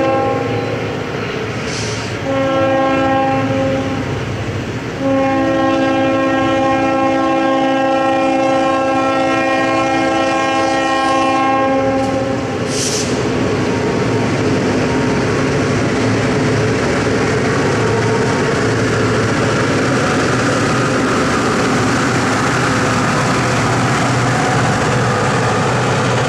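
Approaching train's locomotive air horn sounding a chord of several notes in three blasts: one ending just after the start, a shorter one around 2 to 4 seconds, then a long one ending about 12 seconds in, a pattern typical of a grade crossing warning. After that the steady rumble of the locomotive and its wheels on the rails as it comes closer.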